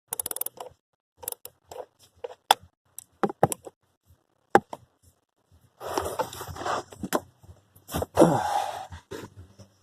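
Scattered sharp clicks and knocks of plastic trim clips and panel parts being worked loose by hand under a car's dashboard, then two longer stretches of scraping and rustling about six and eight seconds in.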